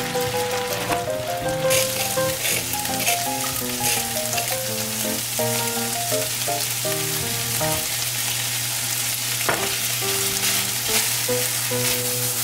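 Flaked salmon sizzling in a frying pan while it is stirred, the hiss growing stronger about two seconds in. Background music with a simple melody plays under it.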